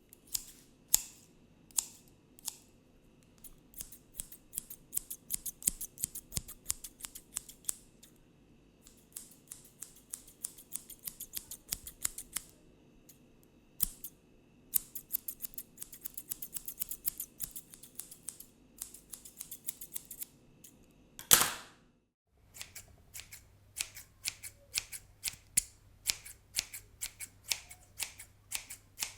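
Barber's scissors snipping in quick runs of many short cuts, with brief pauses between runs. About three quarters of the way through there is one louder, longer sound.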